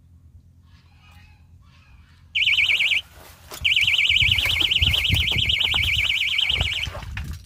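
Electronic fishing bite alarm sounding a high, rapidly warbling tone, a short burst and then, after a brief gap, a longer run of about three seconds: the signal that a fish has taken the bait on one of the rods.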